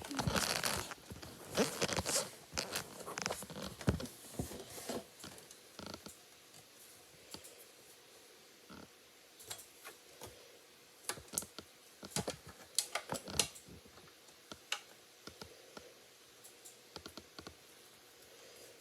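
Knife cutting and scraping into a bar of soap. There is a busy run of short, crisp scrapes and clicks in the first few seconds, then sparser ones with another brief cluster a little past the middle.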